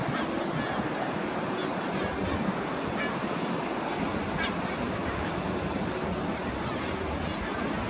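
Steady wash of distant surf with wind rumbling on the microphone.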